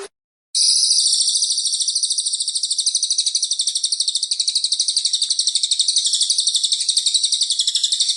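Cililin bird singing one long, fast trill of rapidly repeated high notes, starting about half a second in.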